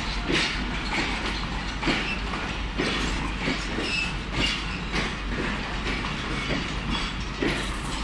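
Jaffar Express passenger coaches rolling slowly along the platform, their wheels clicking over rail joints about twice a second over a steady rumble, with a brief high wheel squeal near the middle.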